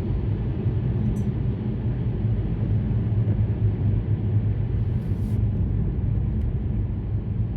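Steady road noise inside a moving car: a low rumble of engine and tyres, with a brief hiss about five seconds in.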